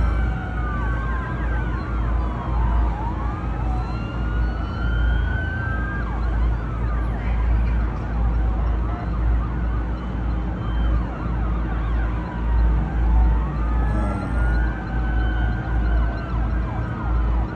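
Several fireboat sirens wailing at once, their pitches rising and falling out of step with one another, over a steady low rumble.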